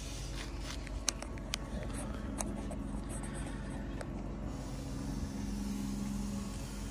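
An engine running steadily at idle, a low even hum, with a few sharp clicks in the first few seconds.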